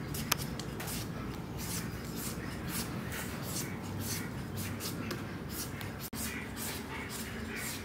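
A kitchen knife shaving thin strips off a peeled green papaya, with repeated short slicing strokes, two or three a second.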